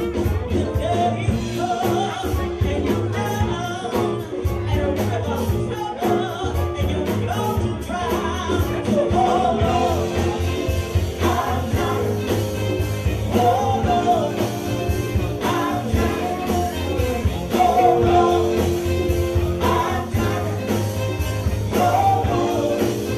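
Live band performance with a woman singing lead into a microphone over a steady drum beat with cymbals.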